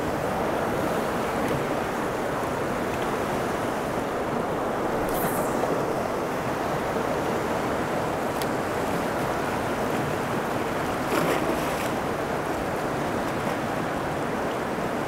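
Steady rush of a fast-flowing river, with a few faint clicks about five, eight and eleven seconds in.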